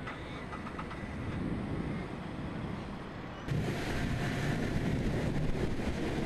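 Storm wind rushing and buffeting the microphone as a steady noise, which turns abruptly louder and fuller about halfway through.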